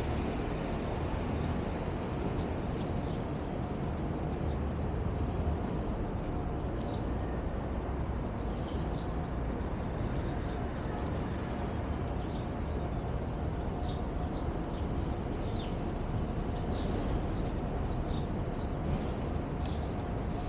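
Small birds chirping over and over in short, high, falling notes, over a steady low rumble of city noise.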